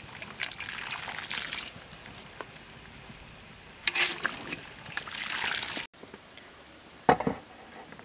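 Braised pig's trotters and their sauce being tipped and poured into a stainless steel pot, a wet sliding, pouring sound. It comes in two spells, the longer one about four seconds in, which stops abruptly, followed by a brief louder splash.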